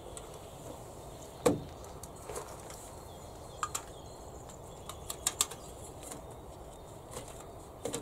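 Small objects being handled and set down on a wooden ledge, giving sharp knocks and taps. There is a loud knock about a second and a half in, a pair of taps near the middle, a quick run of three a little later, and one more near the end.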